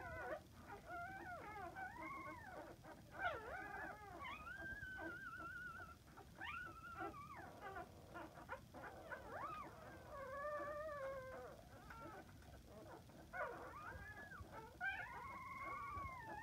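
Newborn puppies squealing and whining while nursing: a run of high, wavering cries that rise and fall in pitch, one after another, with several overlapping at times.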